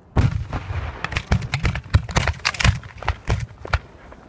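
Aerial fireworks in a professional display, going off in a rapid string of sharp bangs, several a second, that eases off near the end.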